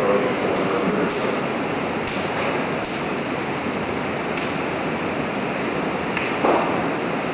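Burning office cubicle fire, fed by jet fuel and a running heptane spray burner: a steady rushing noise with scattered sharp crackles and a louder crack about six and a half seconds in.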